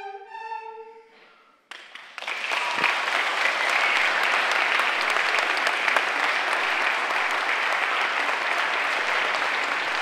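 A recorder and flute ensemble ends on a held note in the first second, then a brief hush, then audience applause starts about two seconds in and continues steadily.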